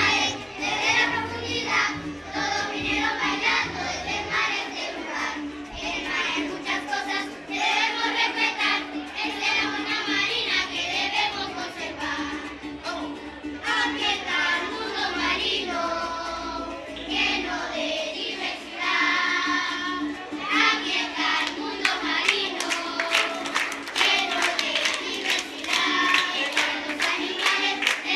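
A group of children singing a song together in unison. In the second half they clap along in rhythm.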